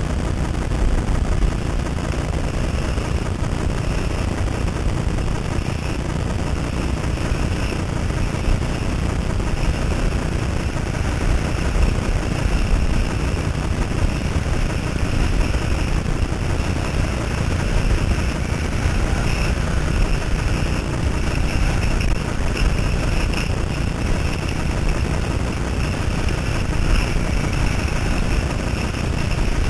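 Wind rushing over the microphone of a camera carried by a skier moving downhill, a steady low rumble with a fainter hiss above it.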